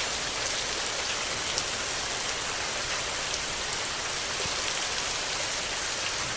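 Steady rain falling: an even hiss with faint scattered drop ticks, one a little louder about a second and a half in.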